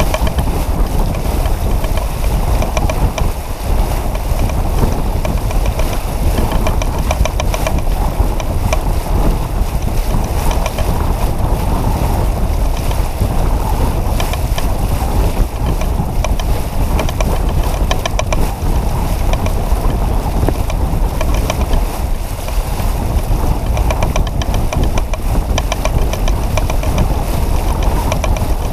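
Steady wind buffeting on the microphone, a loud low rumble, over the rush of water along a J-35 sailboat's hull under sail.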